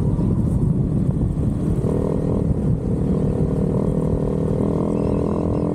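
Motorcycle on the move: wind rumble on the microphone over the engine's drone. About two seconds in, a steady engine tone comes through clearly as it holds an even speed.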